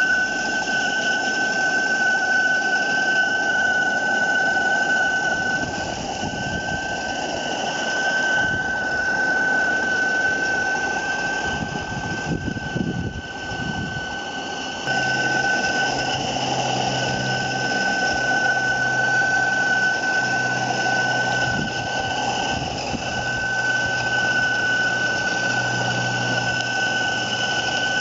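3/4-inch scale gas-fired Allchin live-steam traction engine model running, heard as a steady high whistle that drops out briefly a few times, with a low hum added about halfway through.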